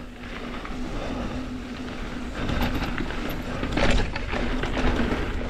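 Mountain bike rolling fast down a dirt jump trail: tyre and frame noise over the ground with a low rumble, a thin steady hum throughout, and a short burst of clattering about four seconds in.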